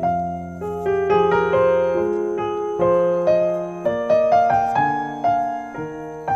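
Background piano music: a melody of struck notes over held low notes.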